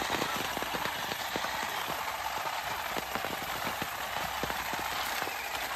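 Battery-powered olive harvester on a long pole, its head beating an olive tree's branches. It makes a steady rustle of shaken foliage dotted with many irregular small clicks as olives and twigs are knocked loose and drop onto a tarp.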